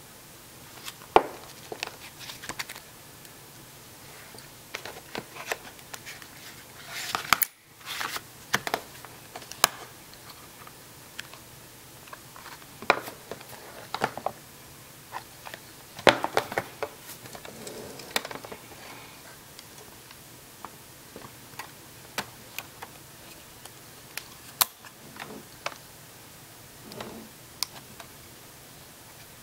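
Handling noise: scattered clicks, taps and short rustles as a Polaroid Land Camera Model 250, its paper instruction card and its case are picked up and handled.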